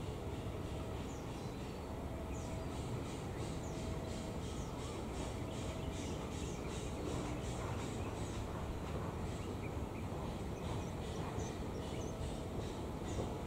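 Diesel-electric locomotive's engine rumbling steadily as it rolls slowly in with a rake of passenger coaches. Short high bird chirps repeat over it.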